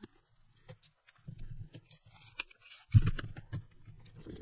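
Small plastic clicks and knocks from a mini RC car chassis and servo being handled and fitted by hand, with one sharper knock about three seconds in.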